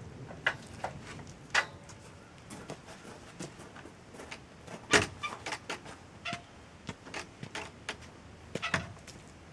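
Irregular clicks and light knocks of tools and lumber being handled during rafter framing, with a sharper knock about five seconds in and another at the very end.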